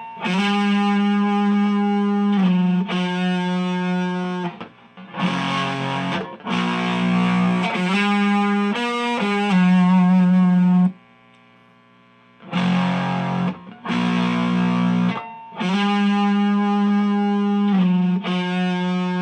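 Electric guitar, a Fender Stratocaster's neck single-coil pickup, played through an Xotic SL Drive overdrive pedal into an Orange Micro Dark amp: a series of held, overdriven chords, each ringing for one to two seconds. Partway through the playing stops for about a second and a half, leaving only faint amp hiss, then the chords resume.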